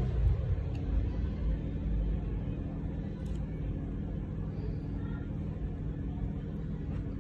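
Steady low background hum and rumble of room noise, with a couple of faint clicks.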